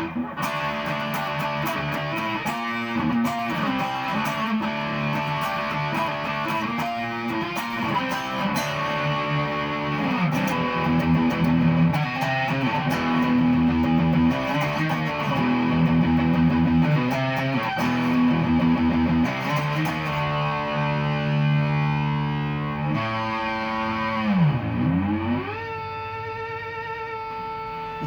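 Charvel San Dimas electric guitar played through distortion, running through chords and riffs. Near the end a note swoops down steeply in pitch and comes back up, then is held with a slight wobble.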